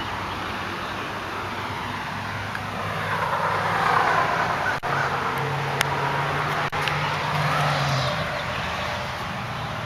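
Road traffic from a nearby highway: a steady hum of passing vehicles that swells louder between about three and eight seconds in as a vehicle goes by.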